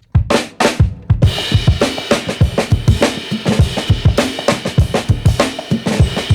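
Background music with a steady drum beat, starting abruptly just as the talking stops and filling out with more instruments about a second in.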